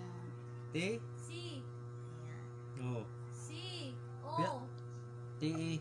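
A steady low electrical hum, with a few brief snatches of quiet voices.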